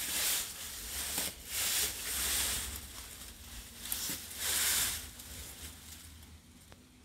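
Rustling hiss of wind and bamboo leaves on the phone's microphone, swelling and fading in several bursts over a low rumble, dying away near the end.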